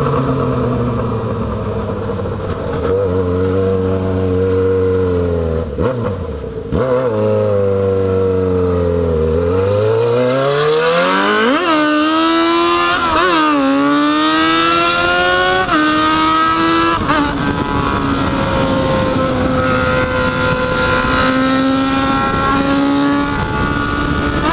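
Yamaha XJ6's inline-four engine heard from the rider's seat. It cruises steadily, eases off twice, then revs up hard through several quick upshifts, the pitch climbing and dropping with each gear, before settling into a steady cruise.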